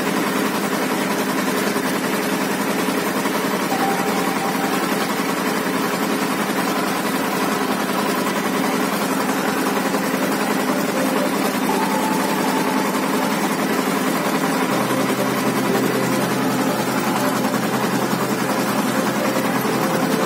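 Vladimir T-25 tractor's two-cylinder air-cooled diesel engine running steadily under load as it pulls a cultivator through the soil.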